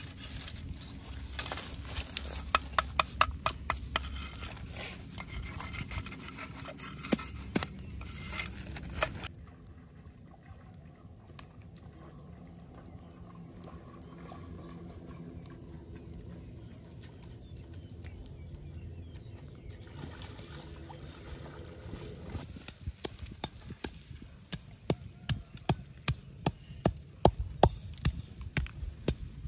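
A stone pestle pounding peppercorns in a stone mortar: a quick, even run of sharp knocks through the last several seconds. Before that comes crackling and rustling of dry twigs and a plastic bag as a fire is laid, which cuts off about nine seconds in to a quieter stretch of steady outdoor background.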